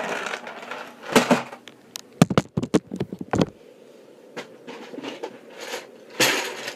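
Plastic Lego pieces clicking and rattling as they are handled in a clear plastic storage container, with a quick run of sharp clicks about two seconds in and short rustling bursts around it.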